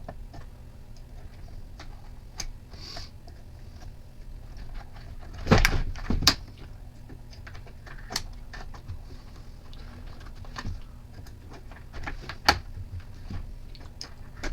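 Scattered clicks and knocks of tools and small-engine parts being handled on a workbench, with two loud knocks about five and a half and six seconds in, over a steady low hum.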